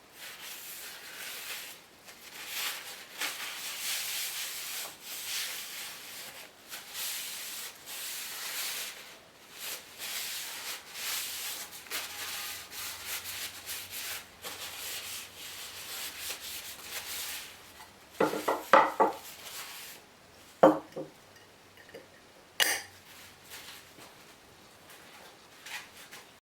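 Irregular rubbing strokes on a wooden piece, then a few sharp wooden clacks and knocks.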